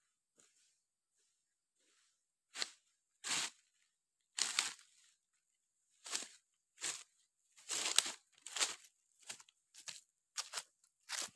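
A series of about a dozen short, dry crackling and rustling noises, like dry material being crushed or handled. They come irregularly at first, then roughly one every 0.7 s in the second half.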